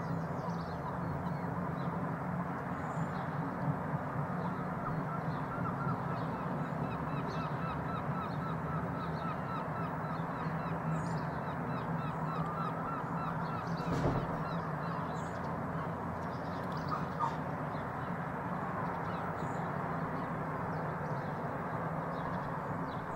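Birds chirping and calling over a steady distant rumble and hiss, with one sharp knock about fourteen seconds in.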